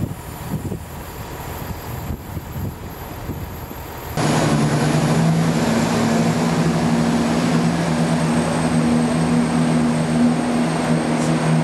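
A quieter low rumble, then a sudden jump about four seconds in to a Class 168 diesel multiple unit's engines droning loudly and steadily on two low held notes as the train runs in along the platform.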